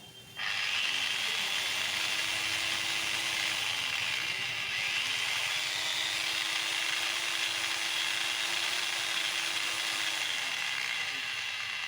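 Electra angle grinder switched on about half a second in and running steadily at full speed, a high whine over a dense rushing noise.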